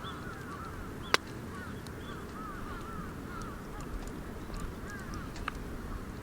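Birds calling in many short rising-and-falling notes over a steady low rushing noise, with scattered small crackles from a wood campfire and one sharp pop about a second in.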